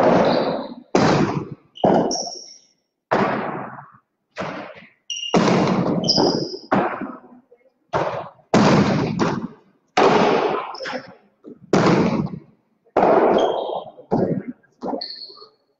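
Hard jai alai balls (pelotas) smacking the fronton's walls and floor, one after another about once a second, each impact ringing on in a long echo around the court. A few short high squeaks come between the hits.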